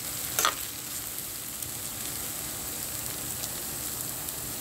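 Bihon rice noodles sizzling steadily in a hot pan as they stir-fry, with one short scrape of the utensil about half a second in.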